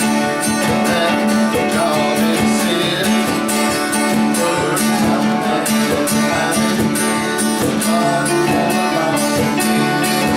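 Small live band playing an instrumental passage, strummed guitars over a steady beat.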